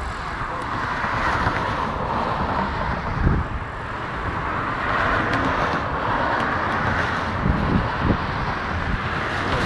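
Aircraft flying low overhead: a loud, steady rushing engine noise that swells and eases, with a few short low thumps.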